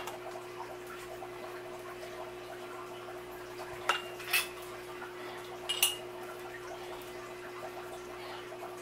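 Kitchenware clinking while hot relish is funnelled into glass canning jars: three sharp clinks, two close together about four seconds in and one near six seconds, over a steady low hum.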